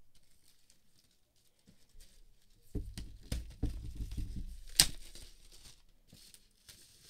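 Clear plastic shrink wrap being torn and peeled off a cardboard laptop box, crinkling, with the box knocking in the hands. It starts about three seconds in, and a single sharp click two-thirds of the way through is the loudest sound.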